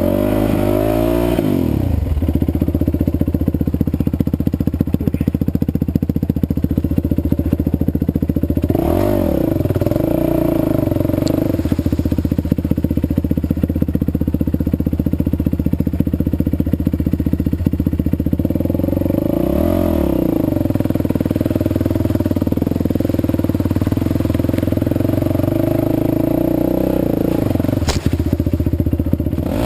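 Yamaha WR450F single-cylinder four-stroke enduro engine running steadily, freshly rebuilt with a new piston and rings. Its note dips and picks up again a few times, as the revs change.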